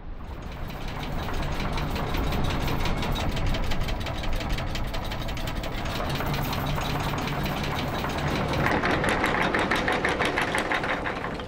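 A boat's engine running with a fast, even knocking beat. A brighter, higher layer joins about nine seconds in.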